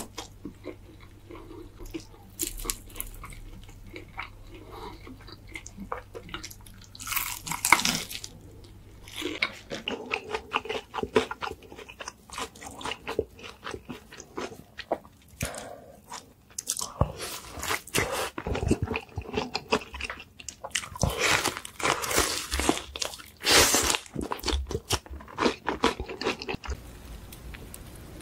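Close-miked crunching bites into crispy fried chicken coating, with chewing in between; the crunches come in clusters, the loudest about a quarter of the way in and again through the second half.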